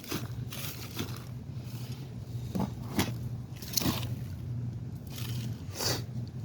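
Digging through damp potting soil in a container, giving scattered scrapes and crunches every half second to a second.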